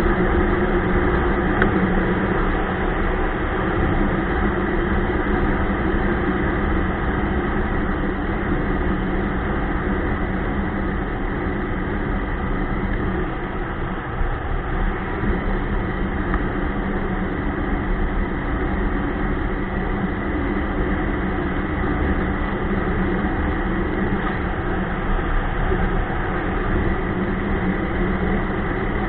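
Ski-Doo Expedition LE snowmobile running steadily while riding.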